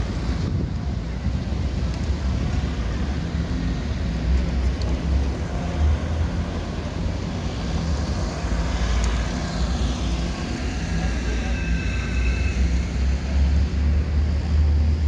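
Street traffic noise with a steady low rumble. A vehicle passes about halfway through.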